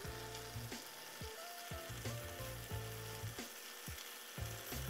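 Pork and kimchi sizzling as they stir-fry in sesame oil in a stainless steel pot, stirred now and then with chopsticks, under soft background music.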